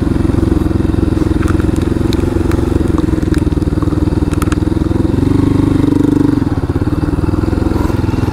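Honda motorcycle engine running at low revs while riding slowly over a rough dirt trail, with a brief rise in revs about five seconds in that eases off again. A few light clicks and clatters sound over the engine.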